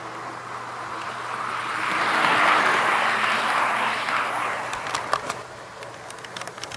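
HO-gauge model trains rolling over sectional track, a rushing rumble that swells as cars pass close by and then fades. Light sharp clicks of wheels over rail joints follow near the end.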